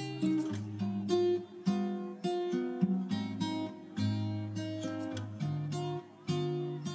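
Background music: an acoustic guitar picking and strumming chords, with fresh notes struck about every half second.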